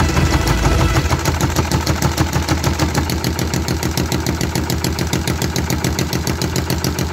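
3D-printed plastic V-twin fuel-injected petrol engine running with a fast, even rhythm of beats, while an electric drill on the flywheel's starter still helps turn it. The builder judges that it sounds as though it has started firing.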